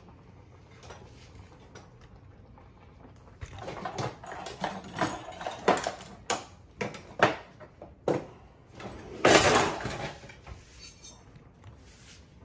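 Metal kitchen utensils clattering and clinking as a hand rummages through a crowded utensil drawer: a run of sharp clicks and knocks, then about nine seconds in one louder scraping sound lasting under a second.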